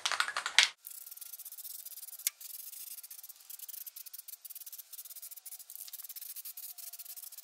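Aerosol can of rubberized undercoating: a brief sharp rattling in the first moment, then a steady, crackly hiss as it is sprayed onto a steel frame.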